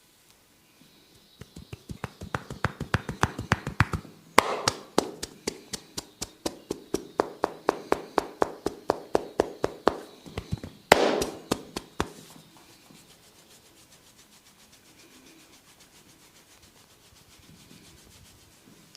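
A barber's hands tapping and slapping rapidly on a person's head during a massage, about five or six strokes a second. Two louder smacks come about four and eleven seconds in, and the tapping stops about twelve seconds in.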